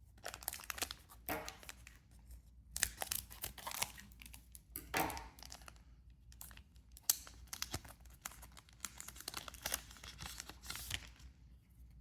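A One Piece Card Game booster pack wrapper being torn open and handled, a run of tearing and rustling in several bursts with short pauses between.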